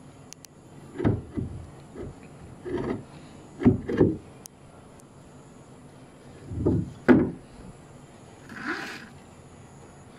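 Wooden boat rudder knocking and creaking on its wooden mount as it is swung and tilted up by hand: a string of dull wooden knocks in two clusters, then a short scrape near the end.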